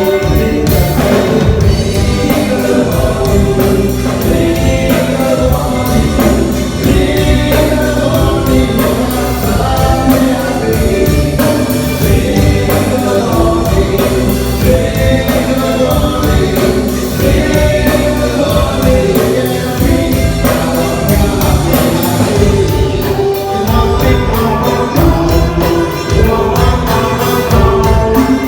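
Band music with several voices singing together over a steady beat.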